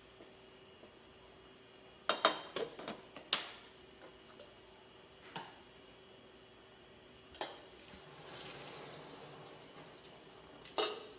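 Kitchen cookware and utensils clattering: a quick cluster of clinks and knocks about two seconds in, then a few single knocks, with a soft hiss lasting about two seconds near the end. A faint steady hum runs underneath.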